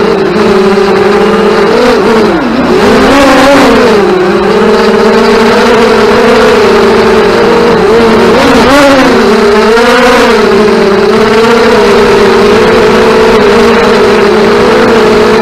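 FPV racing drones' brushless motors and propellers buzzing in flight, the pitch rising and falling with the throttle.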